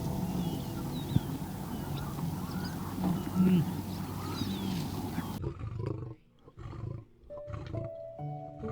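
Low animal calls that bend in pitch, with small birds chirping, over background music; about two-thirds of the way through the outdoor noise cuts off and a quieter passage follows with the music and a few low calls.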